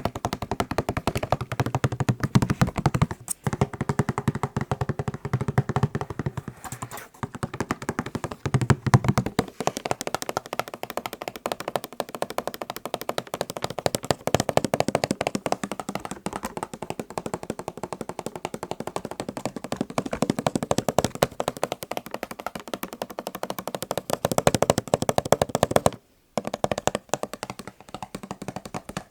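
Fast, continuous tapping on macarons, many taps a second, stopping briefly near the end before starting again.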